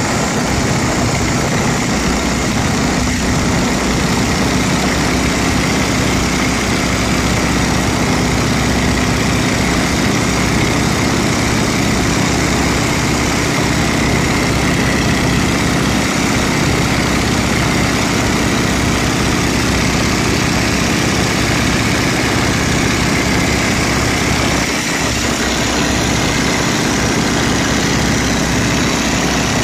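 Boeing Stearman biplane's radial engine and propeller running steadily under power as it climbs out after takeoff, with air rushing past the open cockpit.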